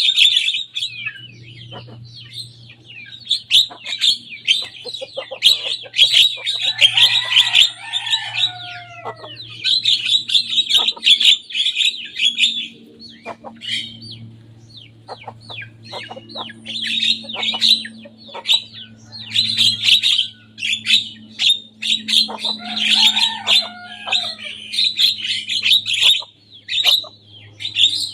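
Javan myna (jalak kebo) singing: long runs of rapid, harsh chattering and clicks. Twice the runs break into lower warbling notes that slide downward.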